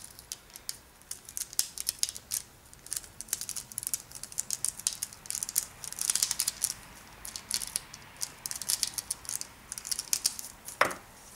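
Dried Water Effects icicle strips being peeled off a plastic sheet: a run of small crackles and crinkles as the film lets go, denser about six seconds in. One sharper click comes near the end.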